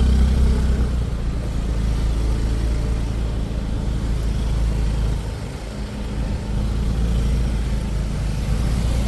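Steady low rumble of a vehicle, which dips briefly a little past the middle.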